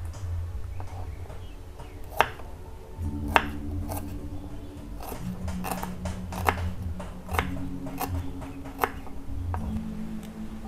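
Kitchen knife slicing shallots on a wooden cutting board: irregular sharp taps of the blade striking the wood, about a dozen in all.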